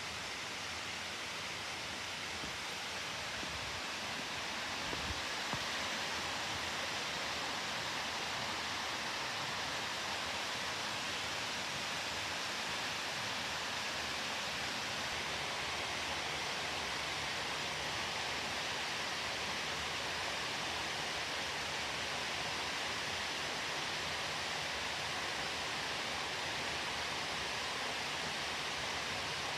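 Steady rush of flowing water on a mountain stream, with a couple of faint knocks about five seconds in.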